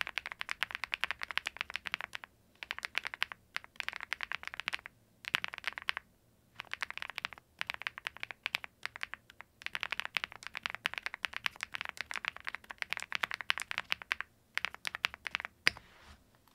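Fast typing on a Zoom75 mechanical keyboard: quick runs of key clacks in bursts of a second or more, broken by short pauses. One louder keystroke stands out just before the typing stops at the very end.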